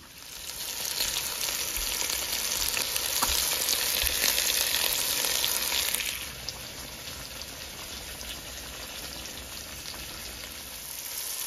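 Spice-marinated chicken thighs sizzling in oil in a stainless steel pan: a loud, steady frying hiss that drops to a quieter hiss about six seconds in.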